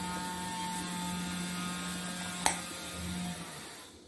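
Steady electrical hum or buzz that fades out about three and a half seconds in, with a single sharp tap of a knife on a plastic cutting board about two and a half seconds in.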